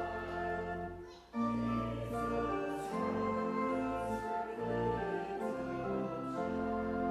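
Congregation singing a hymn to organ accompaniment in sustained chords. The music breaks off briefly about a second in, then the next line begins.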